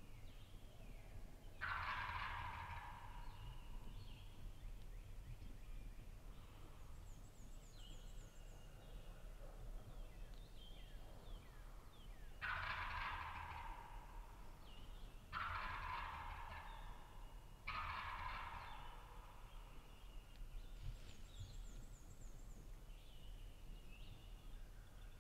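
Wild turkey gobbler gobbling four times: once early, then three gobbles a few seconds apart later on.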